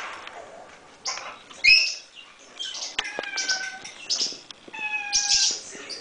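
Pet parrot calling: a run of short, harsh squawks and chirps, with two longer, level whistled notes about three and five seconds in.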